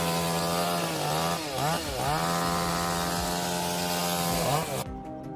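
Chainsaw engine running at high revs, letting off briefly and revving back up twice about one and a half to two seconds in. It drops again near the end and is cut off abruptly.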